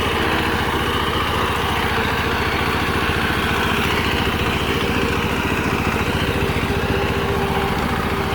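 A rice reaper's engine runs steadily as it cuts rice, with a rapid, even chugging.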